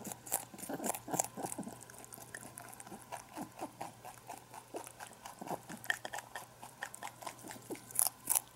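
Pet rabbit chewing kale leaves from a bowl: quick, irregular crisp crunches several times a second, a little louder near the end.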